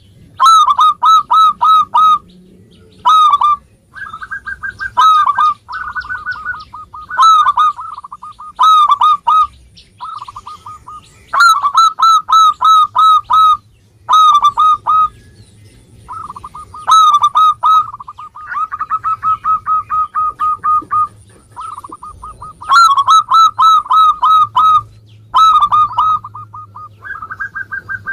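Zebra dove (perkutut) cooing: many short phrases of quick staccato coos, each a second or two long, with brief pauses between them.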